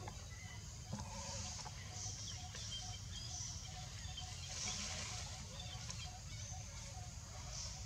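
Animal calls: a regular string of short mid-pitched notes, a few a second, with several brief high squeals over a steady low rumble.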